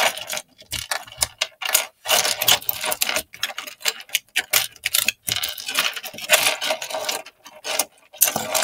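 Plastic Lego bricks clicking and clattering in rapid, irregular bursts as a model is pulled apart and the pieces handled.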